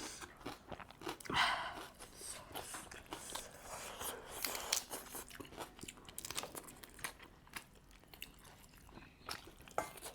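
Close-miked eating of a seafood boil: chewing and biting with irregular crunches and small sharp clicks, the loudest crunch about one and a half seconds in.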